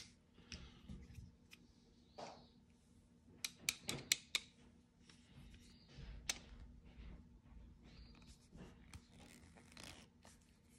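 Small metal clicks and scrapes of a flat-blade screwdriver turning an adjustment screw in a Yamaha Moto-4 350 carburetor body held in the hand, with a quick cluster of sharp ticks a little before halfway through. The screw is being soft-tightened until it bottoms out, counted in half turns.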